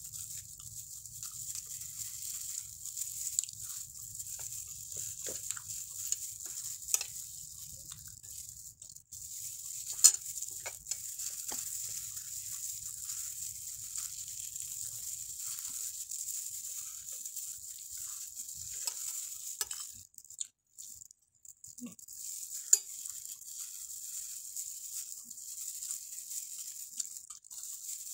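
Close-up eating sounds: a plastic-gloved hand picking and flaking a large cooked tilapia on a plate, and chewing, heard as scattered small clicks and crackles over a steady hiss. One sharper click comes about ten seconds in.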